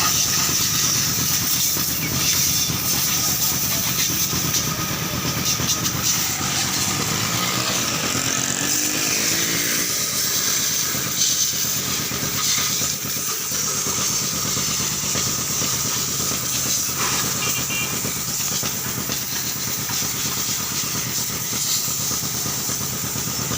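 Pressure washer running with a steady hiss of water spray and a constant machine hum, without a break.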